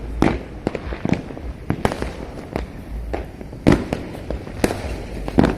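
Many fireworks going off at once, irregular sharp bangs and pops, some near and loud, others distant, over a low continuous rumble.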